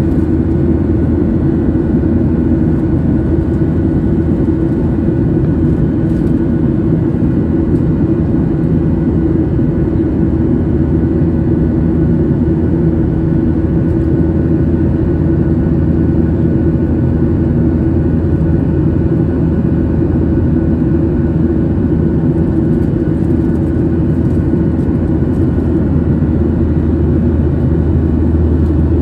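Boeing 737 jet engines running with a steady, loud drone and a few constant hums.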